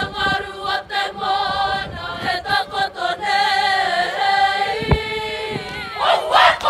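Māori school kapa haka group singing a welcome song together in harmony, with a short low thump about five seconds in. About six seconds in, the singing gives way to loud, rhythmic shouted haka chanting.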